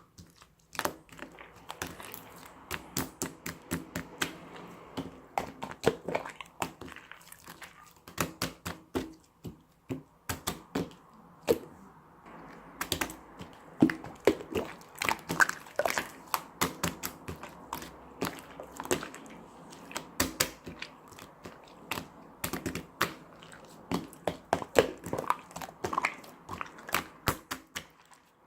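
Rapid, irregular clicking and tapping, several strokes a second, with short pauses, over a faint steady background.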